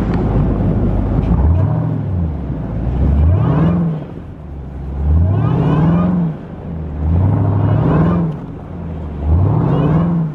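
Jeep Grand Cherokee Trackhawk's supercharged 6.2-litre V8 revving up and easing off again about five times, roughly every two seconds, with the vehicle in snow mode.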